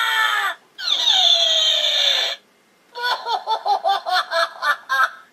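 Electronic sound effects of the Rabbids Plunger Blaster toy: recorded Rabbid voice clips played through its small speaker. A long yell ends just after the start, then a wail that falls in pitch, and after a short pause a quick run of short choppy cries, about five a second.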